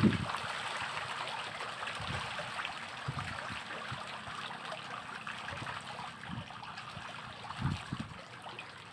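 Farmed fish splashing and churning at the surface of a floating net cage as feed pellets are thrown in, a dense patter of small splashes that thins and quietens toward the end. A few dull low thumps sound through it.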